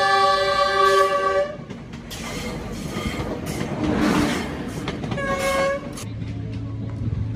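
Passenger train's horn sounding a long blast that stops about a second and a half in, then the rush of the train passing close, loudest about four seconds in, and a second short horn blast about five seconds in.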